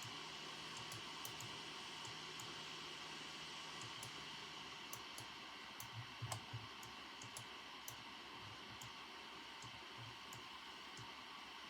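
Computer keyboard being typed on in sparse, irregular keystrokes, with a denser, louder cluster of keys a little past the middle, over a steady soft hiss of background ambience.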